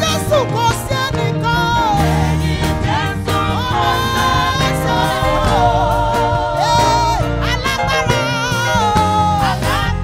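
Live gospel song: several singers holding wavering notes with vibrato, backed by a band with drums and bass.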